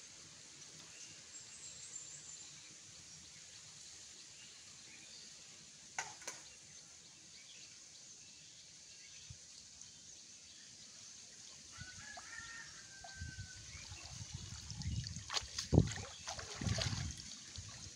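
Pond water splashing and streaming off a wet cast net as it is hauled up out of the water and gathered in, starting about two-thirds of the way in and turning into loud, irregular sloshes. Before that there is only a faint steady outdoor hiss with a single click.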